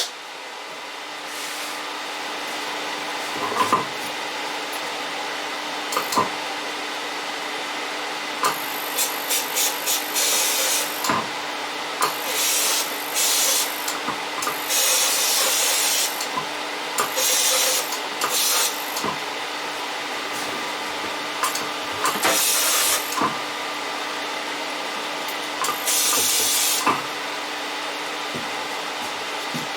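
Powder coating spray gun firing in repeated bursts of hissing air and powder, some short and some lasting a second or two, over a steady hum, with a few short knocks.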